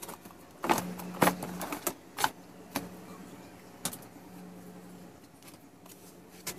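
Handling clatter: a boxed digital timer in plastic packaging and small electronic parts being picked up and set down on a wooden table, giving a run of sharp clicks and knocks that thin out after about three seconds, over a faint steady low hum.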